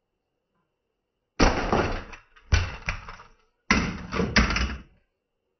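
Four loud crashing knocks about a second apart, starting about a second and a half in, each with a sharp start that dies away within about half a second.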